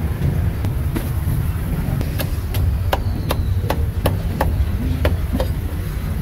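A cleaver chopping roast meat on a wooden block: a run of about ten steady chops, roughly three a second, beginning about two seconds in.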